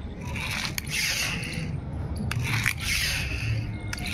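Small plastic toy airplane's wheels scraping back and forth over rough concrete as it is pushed down by hand, in a few gritty strokes with small clicks.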